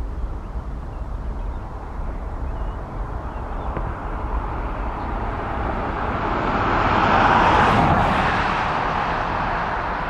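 Twin-engine jet airliner taking off at full thrust: the engine noise swells to its loudest about seven to eight seconds in as the plane lifts off and climbs away, then eases slightly.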